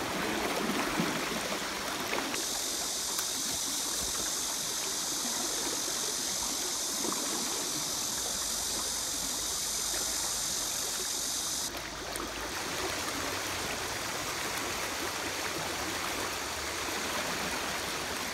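Fast river water rushing steadily through a shallow riffle, a continuous noisy rush without pauses. Its character changes abruptly twice, about two seconds in and again near twelve seconds.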